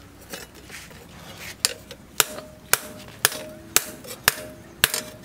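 A hand hammer forges a red-hot bearing-steel knife blank on a steel anvil. After about a second and a half it strikes seven blows, about two a second, and each blow rings briefly with a metallic tone.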